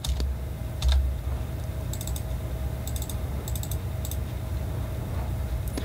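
Computer mouse clicking in small clusters of quick clicks, like double-clicks, a handful of times, over a steady low background hum.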